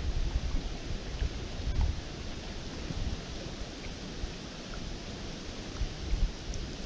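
Steady rush of flowing river water, with wind buffeting the microphone in the first couple of seconds.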